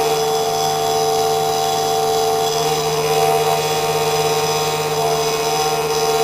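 Small CNC engraving machine running, a steady high-pitched motor whine that holds an even pitch throughout.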